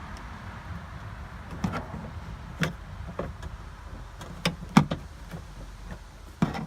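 Scattered sharp clicks and knocks, about six of them, from a plastic interior truck door panel being pushed on and pried with a clip remover tool.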